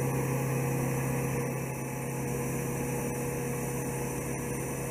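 A machine running with a steady low hum and a fainter higher tone above it.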